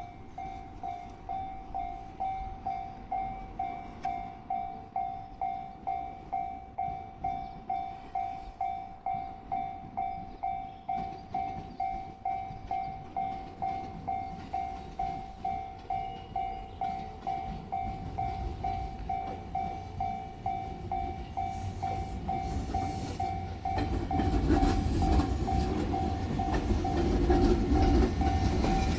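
Japanese level-crossing warning bell dinging in a steady, even rhythm. The rumble of an approaching train grows from about two-thirds of the way through and is loudest near the end as the train reaches the crossing.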